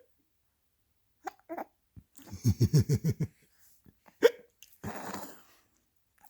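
A single sharp, loud hiccup about four seconds in, followed by a short breathy exhale. A little earlier, about two seconds in, a person laughs in a quick run of short bursts.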